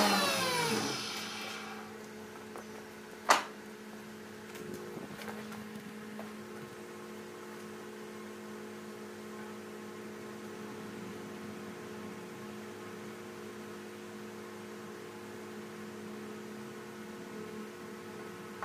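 Electric jointer's motor coasting down after being switched off, its whine falling in pitch and fading over the first two seconds. A single sharp knock follows, then a steady low electrical hum.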